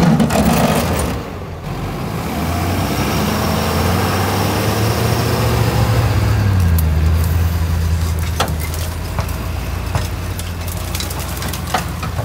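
Pickup truck engine running steadily under load, its pitch stepping down a little past halfway, with a few sharp clicks near the end.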